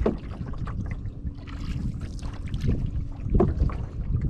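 Wind rumbling on the microphone of a camera aboard a canoe under way, with a few short noises, the loudest a little after three seconds in.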